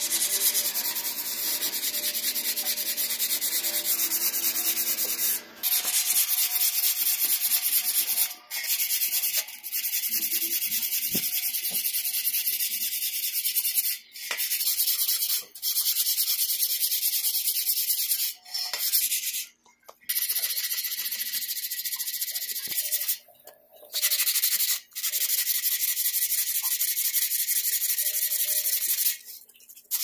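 Steady abrasive scrubbing on rusted metal bicycle parts, rubbing off rust, in long strokes with short pauses every few seconds.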